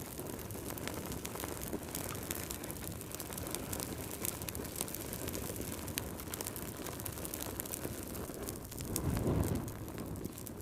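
Wood fire crackling, with frequent small sharp pops over a steady low rumble of burning that swells briefly about nine seconds in.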